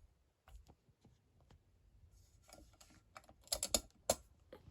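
A few light clicks and taps, with a quick run of louder clicks about three and a half seconds in and one more just after four seconds.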